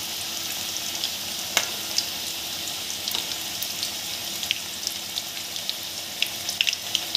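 Maida-dough karela snacks deep-frying in hot oil in a kadhai on a low flame: a steady sizzle dotted with scattered sharp crackles.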